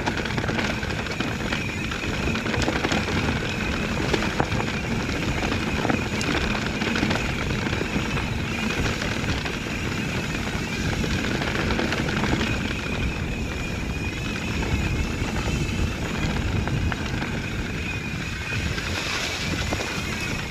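Santa Cruz Bronson mountain bike riding a dirt trail: tyre noise and small knocks and rattles, with wind rumbling on the microphone. A thin, steady high tone runs throughout.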